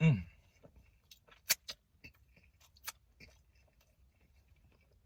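Close-up chewing of a fried chicken sandwich, with a few sharp crunching clicks. A short sound falling in pitch comes right at the start.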